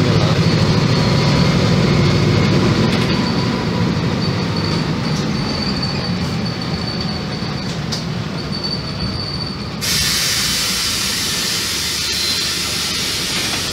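Volkswagen 15.190 EOD bus heard from inside the cabin, its diesel engine running with the low engine note easing off, and a thin high whine coming and going. About ten seconds in, a sudden steady hiss sets in and continues.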